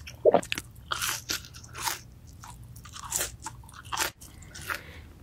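Crispy fried chicken strip bitten and chewed close to the microphone: a loud crunch at the first bite, then irregular crisp crunches as it is chewed.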